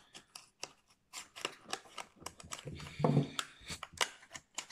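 Plastic lure packaging handled and opened by hand: a run of sharp clicks and crinkles as a clear plastic blister is worked out of its cardboard box, with a louder, lower bump about three seconds in.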